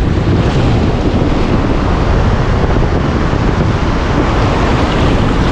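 Shallow surf washing around the wader, with wind buffeting the microphone in a steady, heavy rumble.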